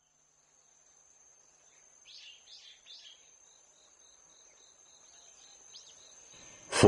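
Faint birdsong over a steady high insect trill: three short falling chirps about two seconds in, then a run of quick repeated bird notes, about three a second.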